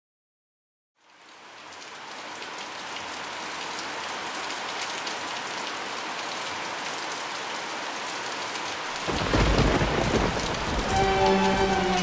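Steady rain fading in after a moment of silence. About nine seconds in, a deep rumble of thunder joins and the rain grows louder, with soft music tones coming in near the end.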